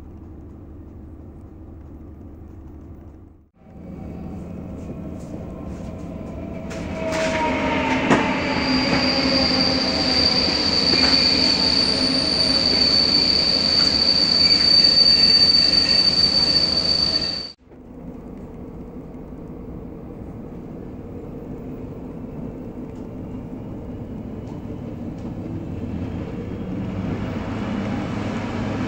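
Heard from inside a locomotive-hauled passenger coach: the train rumbling along, then a loud stretch with falling tones and a long steady high-pitched wheel or brake squeal as it slows. After an abrupt cut the sound comes back as a quieter rumble that rises in level and pitch as the train picks up speed.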